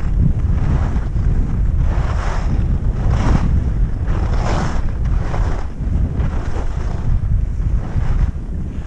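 Wind buffeting the microphone of a skier moving downhill, a heavy steady rumble, with the hiss of skis scraping over the snow swelling about once a second as turns are linked.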